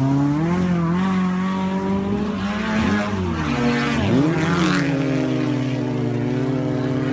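Off-road 4x4's engine running hard at high revs through mud. The pitch dips and climbs again about three seconds in and once more a second later.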